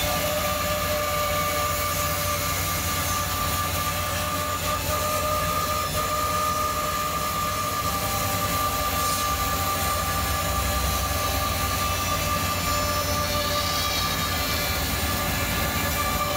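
Samach RMJ1514 CNC band saw running and resawing a wooden board as it is fed past the blade: a steady machine whine with a high held tone and a lower one over a low rumble.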